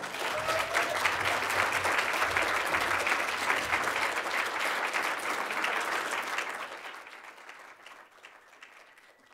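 Audience applauding, full at first and then fading away over the last few seconds.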